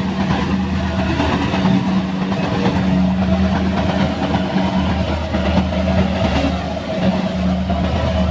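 Kubota combine rice harvester's engine running steadily with a constant low hum.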